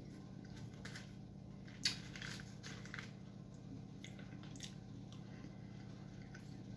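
Quiet, close-up chewing and wet mouth sounds of a man eating soft kulich Easter bread, then a spoonful of sweet curd paskha near the end. A few small clicks come from the mouth and spoon, the sharpest about two seconds in, over a faint low hum.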